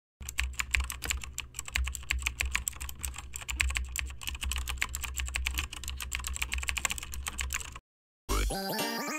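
Rapid computer-keyboard typing, keys clacking several times a second over a low hum, stopping about 8 seconds in. A short electronic tune starts just after.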